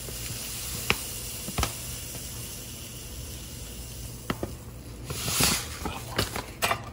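Cane sugar pouring from its bag into a small stainless steel measuring cup: a soft steady hiss with a few light clicks, and a louder rustle about five seconds in.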